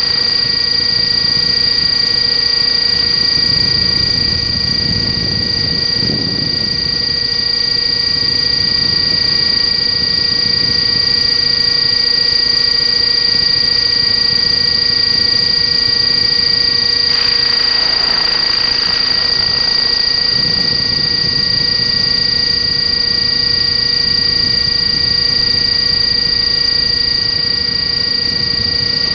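Align T-Rex 600 RC helicopter running at a steady head speed, heard from on board: a high, steady whine of motor and gears, with low rumbling swells now and then.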